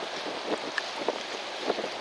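Strong wind buffeting the microphone in a steady rushing noise, with a few short irregular knocks or splashes.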